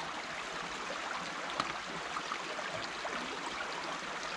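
Small creek flowing over rocks, a steady babbling water sound, with a few light splashes and knocks from wading in the shallow water, the sharpest about one and a half seconds in.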